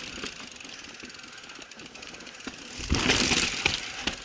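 Norco Range mountain bike rolling down a rock slab: tyres on rock with chain and bike rattling and clicking, and a louder rough burst of rattling about three seconds in.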